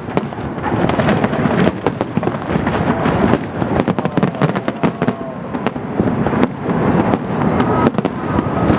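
Large fireworks display: a rapid, continuous barrage of bangs and crackling bursts.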